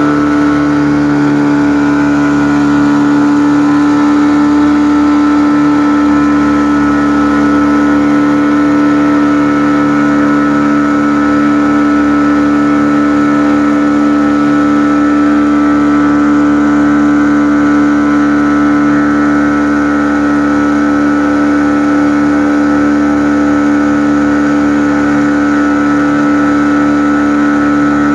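Motorboat engine running at a steady speed under way, one even tone that holds its pitch throughout.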